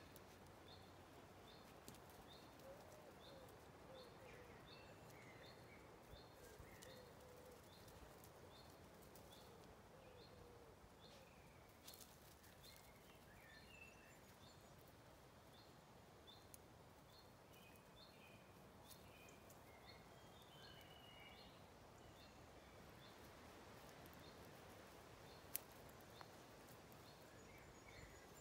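Faint birdsong over quiet outdoor hiss. One bird repeats a short high chirp a little more than once a second throughout, while others add scattered warbling phrases, with a lower wavering call in the first ten seconds. There is a sharp click about 25 seconds in.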